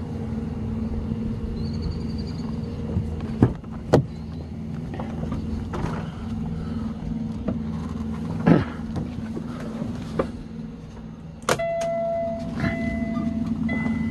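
Kenworth T680 truck's diesel engine idling with a steady low hum, with a few knocks and clicks as the cab is entered. About two-thirds of the way in, a sharp click is followed by a two-tone electronic chime from the cab that sounds in repeated pulses.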